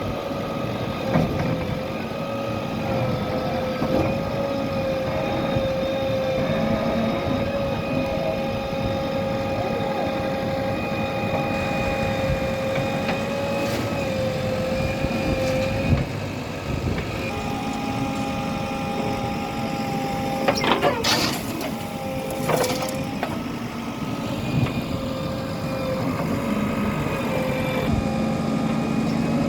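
Steady engine drone of heavy machinery (a backhoe loader and tractors) as a cartoon sound effect, with a cluster of sharp clattering noises about two-thirds of the way through.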